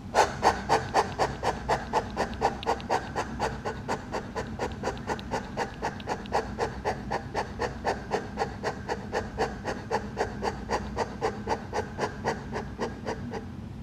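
A woman breathing in rapid, short, rhythmic breaths, about four a second and very even, in the yogic rabbit breathing exercise: fast chest breathing with the tongue tucked under the lower lip.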